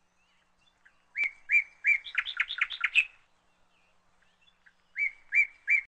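A bird chirping: three clear, evenly spaced chirps, then a quick run of chirps, and after a pause of about two seconds, three more chirps.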